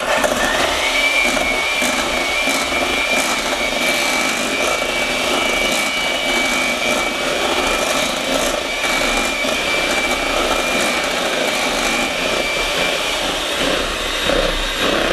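Two electric hand mixers running at once, beating cream cheese in mixing bowls: a steady motor whirr with a high whine over it.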